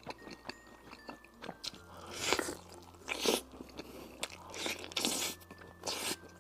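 Close-miked biting and chewing of a sauce-covered crispy fried chicken drumstick: a handful of crunching bites, the loudest about two, three, five and six seconds in, with quieter chewing between them.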